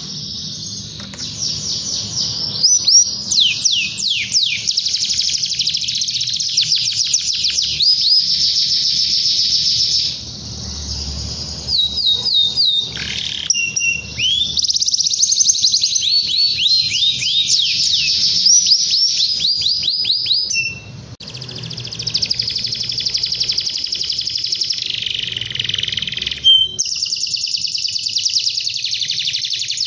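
Domestic canary singing a long, continuous song of fast high trills and rolls, breaking off briefly about ten and twenty-one seconds in.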